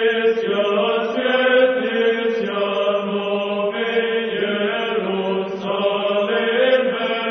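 Orthodox church chant: sung, held notes moving slowly from pitch to pitch over a steady lower note.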